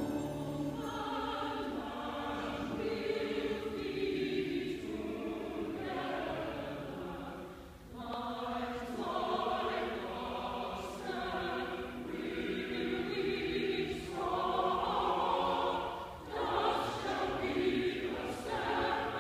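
Robed church choir of men and women singing together, with short breaks between phrases about eight and sixteen seconds in.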